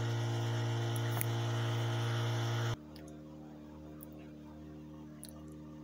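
Small 12-volt electric pump running at full speed through a PWM speed controller, a steady electric hum; about three seconds in it cuts off abruptly, leaving a much fainter hum.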